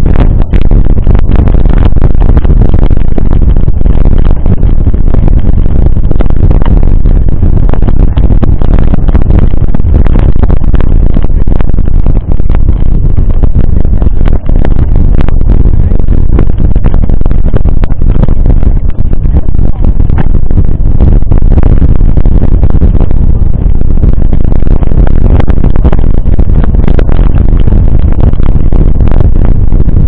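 Loud, steady wind rumble on an action camera's microphone while a mountain bike rolls over a wet gravel and dirt road, with frequent knocks and rattles from the bike and mount on the rough surface.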